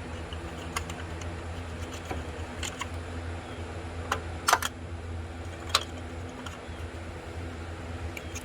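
Sharp, irregular metallic clicks of hand tools and small metal parts being handled, over a steady low hum. The loudest is a close double click about four and a half seconds in, and there is another about a second later.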